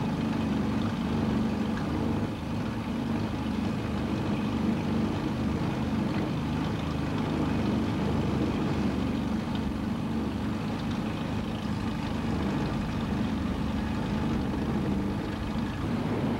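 Small boat's engine running steadily at low speed.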